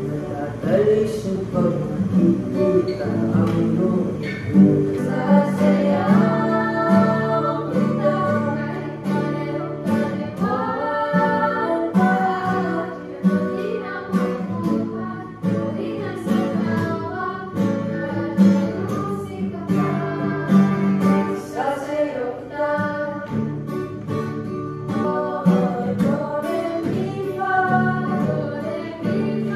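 Women singing a Tagalog song with two acoustic guitars and a ukulele strumming the chords along with them.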